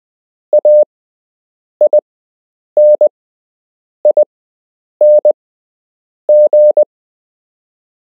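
Morse code practice letters keyed as a single steady mid-pitched beep. Six separate characters, each a quick cluster of dots and dashes, come about one a second with silence between.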